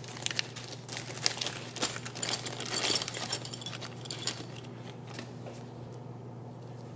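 Clear plastic zip-lock bag crinkling as carbon-fibre frame parts are pulled out of it by hand, with light clicks and clinks of the parts and the bag of small fasteners. The handling dies down about five seconds in.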